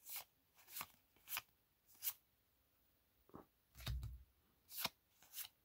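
Foil Magic: The Gathering trading cards being handled and flipped one by one in the hand, a series of about eight short, faint card swishes and snaps.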